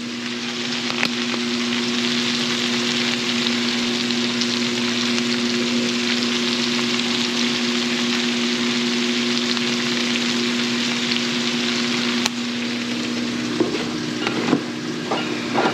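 Cabbage frying in a skillet on a gas burner: a steady sizzle. Under it runs a low steady hum that cuts off with a click near the end, followed by a few small knocks.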